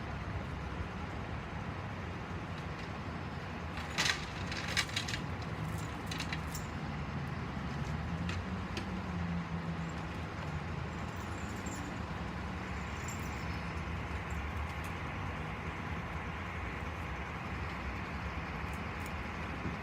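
A large vehicle engine running steadily, its pitch rising briefly about eight seconds in. A few sharp clicks and knocks come about four to five seconds in.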